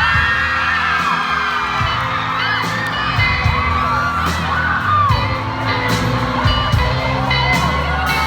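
A live band plays the intro of a song while audience members whoop and scream over it, with a few sharp claps or knocks.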